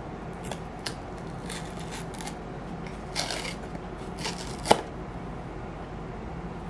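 Cardboard tear strip of a blind box being picked at and pulled open: scattered scratching and rustling, a short tearing rip about three seconds in, and one sharp click a little later, the loudest sound.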